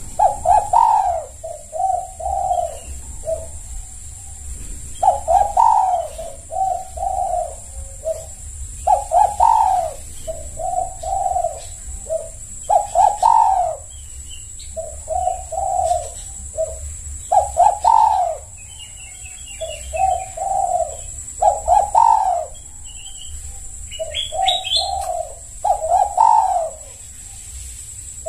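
Spotted dove (tekukur) cooing its several-note phrase over and over, about once every four seconds. Faint high chirps of a small bird come in twice in the second half.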